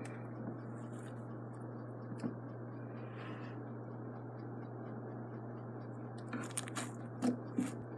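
Three-colour unicorn slime being squished, stretched and folded by hand, with a few soft ticks and then a quick cluster of sharp clicks and pops near the end as fingers press into it. A steady low hum sits underneath.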